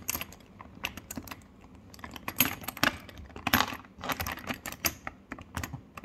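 Metal zipper pulls rattling and clicking as they are pushed and snapped into the built-in TSA combination lock of a hard-shell suitcase, locking it. An irregular run of sharp clicks, thickest from about two to five seconds in.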